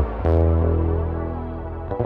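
Rickenbacker bass in Ric-O-Sound stereo, with the neck pickup clean and the bridge pickup through a shimmer effect. A low note is struck about a quarter second in and left to ring, fading slowly with a synth-like shimmer. Quick picked notes start again near the end.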